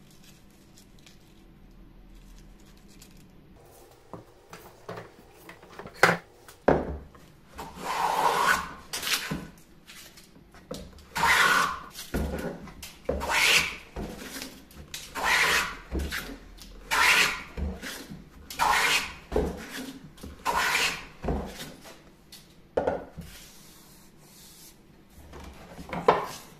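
Handmade beech shooting plane with steel side plates being pushed along a shooting board, shaving the end grain of a wooden block. After a few quiet seconds come a dozen or so short hissing cuts, roughly one every second or two, many of them starting with a light knock of the plane on the board.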